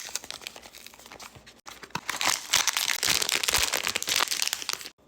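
Blind-box packaging being torn open: wrapping crinkling and ripping, soft at first and much louder from about a second and a half in, then stopping abruptly near the end.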